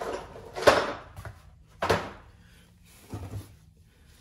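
Tools being shifted about in a cardboard box: four clunks and rattles, the loudest about two-thirds of a second in, as a corded electric sander is pulled out from among other tools and cords.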